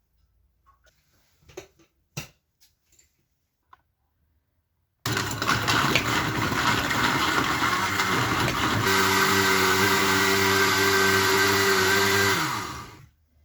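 Electric countertop blender running for about eight seconds, blending a spinach smoothie. About halfway through it settles into a steadier hum, then spins down with falling pitch as it is switched off. Before it starts, a few light clicks and knocks.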